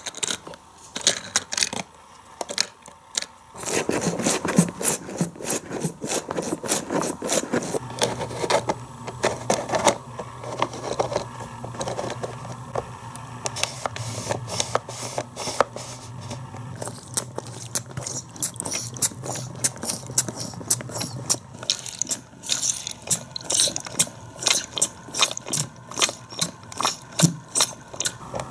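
Plastic mechanism of a Hot Wheels car wash playset being worked by hand, turning the foam-roller wash tube: a dense run of plastic clicking and rattling that picks up about three and a half seconds in.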